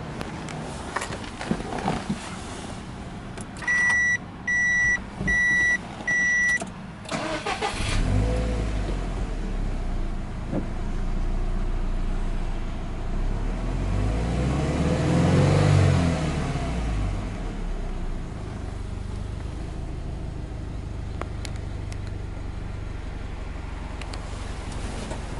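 Four short electronic warning beeps, then a Subaru Impreza WRX STI's EJ20 turbocharged flat-four is cranked and catches, settling into idle. About fifteen seconds in it is free-revved once, rising and falling, then drops back to a steady idle.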